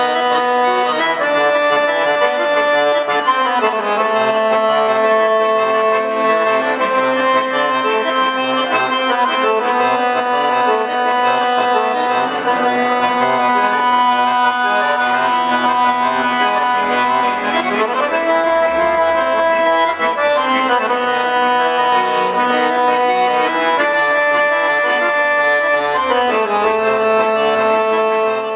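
Pigini piano accordion played solo: a slow piece of long held chords and melody notes that change every second or two, with low bass notes coming in about halfway through.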